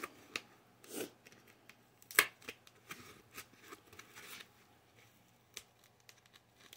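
Faint, scattered rustles and clicks of a foam pool noodle being handled and pressed against a wooden chair leg, with one sharper click about two seconds in.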